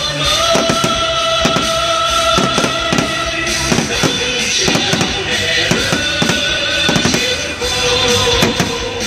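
Loud music with drums and held notes, mixed with irregular sharp bangs and crackles from aerial fireworks bursting.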